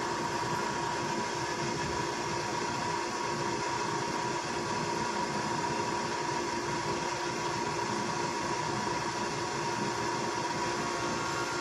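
Steady mechanical background noise: an even hiss with a constant hum, unchanging throughout.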